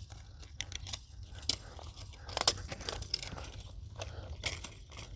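Steel fence wire being twisted into tight wraps around a barbed-wire strand with a screwdriver as a lever: irregular small clicks and scrapes of wire on metal.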